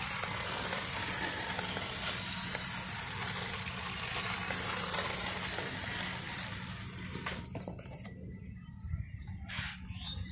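Small electric motor of a toy RC car whirring, its tyres rolling on rough concrete, as a steady hiss that fades away about seven to eight seconds in. A few sharp knocks follow near the end.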